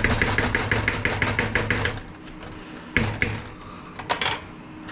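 Wire whisk beating a thick flour-and-chicken-stock roux in a pot: rapid, rhythmic clinking strokes for about two seconds, then a few separate sharp knocks.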